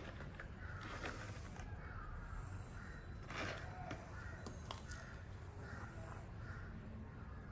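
Crows cawing faintly and repeatedly, a short call about every half second, with a couple of light knocks about a second in and near the middle.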